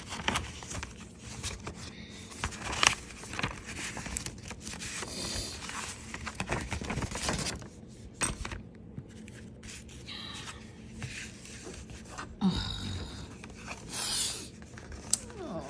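Paper envelope being opened by hand: irregular rustling and scraping of stiff paper with scattered small clicks and crinkles as a card is slid out of it.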